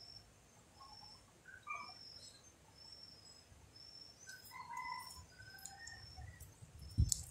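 Faint birdsong: a short high chirp repeating about every two-thirds of a second, with scattered short whistled notes from other birds. A single sharp knock near the end.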